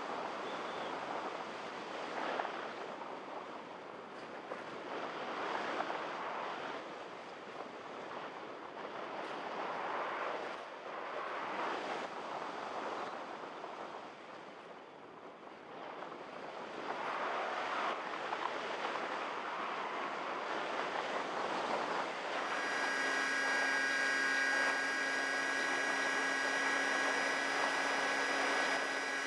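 Wind rushing over the onboard camera microphone of a Multiplex EasyStar RC plane, swelling and fading as it glides. About 22 seconds in, the plane's electric pusher motor starts and runs with a steady high whine over the wind.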